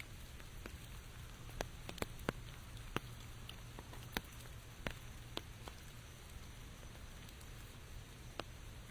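Rain falling: a steady soft hiss with scattered sharp taps of single drops landing close by, about ten of them at irregular intervals.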